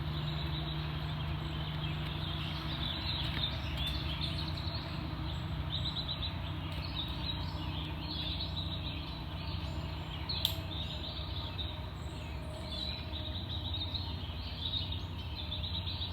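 Outdoor ambience: a steady low rumble with small birds chirping in short repeated bursts, and a single sharp click about ten seconds in.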